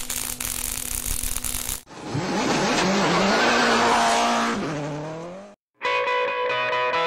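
Logo-intro sound effects: a hiss of sparks over a steady hum, then a race-car engine revving up with tire squeal, rising in pitch and falling away before it cuts off suddenly. Electric guitar music starts near the end.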